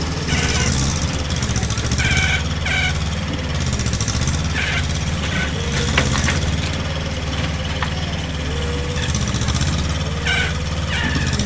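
Bobcat 343 mini excavator's diesel engine running, its pitch rising and falling as the machine works under load, with short high squeaks at intervals.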